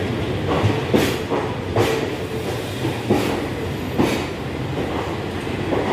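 Express train's passenger coaches rolling past as the train comes into the station, with a steady rumble and wheels clacking over rail joints about once a second.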